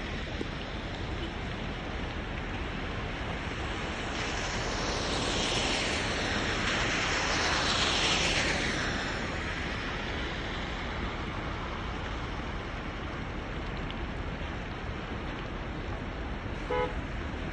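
Steady hiss of rain, swelling for several seconds in the middle as a vehicle passes on the wet road. A brief pitched tone sounds near the end.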